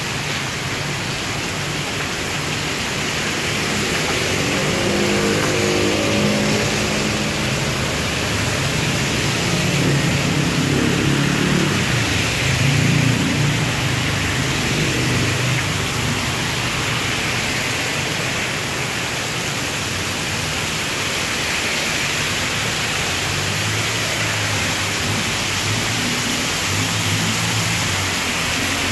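Extremely heavy rain pouring down steadily onto a flooded street and pavement. Road traffic runs alongside, a passing vehicle's engine hum swelling through the middle and again near the end.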